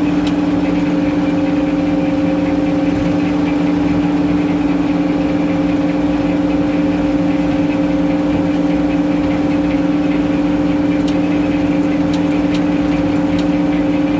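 An engine running at a steady, unchanging speed: a constant, even drone.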